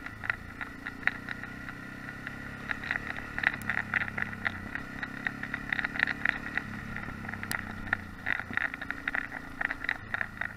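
Yamaha XT660X single-cylinder four-stroke engine running at low, steady revs off-road, its pitch stepping a few times as the throttle changes. A dense rattle of sharp clicks rides over the engine.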